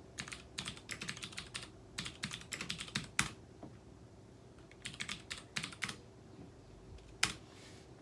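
Typing on a computer keyboard in three quick bursts of keystrokes, with one louder single key click near the end.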